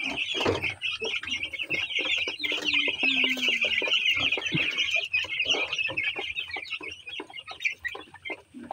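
A flock of 12-day-old broiler chicks peeping, many high chirps overlapping without a break, with scattered light knocks among them.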